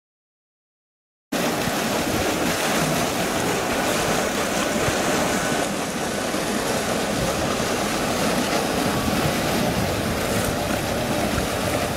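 Silence, then about a second in a steady rush of pool water starts abruptly, with splashing from a swimming South American sea lion.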